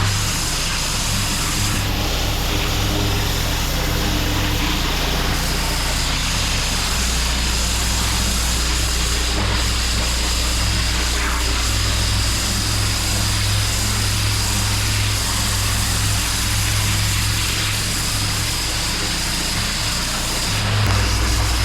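Pressure washer running steadily: a low engine hum under the even hiss of the water jet spraying block paving.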